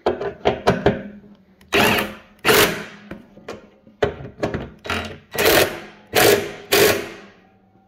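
Impact wrench with a 1/2-inch socket driving bolts down onto lock washers to fasten the leaf vacuum's steel discharge chute. A few quick taps in the first second, then about six short hammering bursts.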